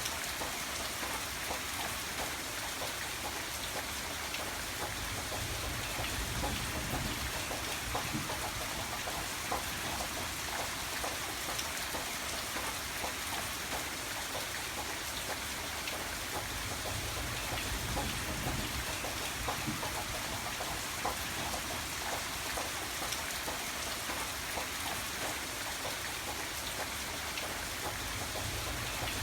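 Steady rain falling on a surface, a dense hiss with many small drop ticks, and a faint low rumble that swells now and then.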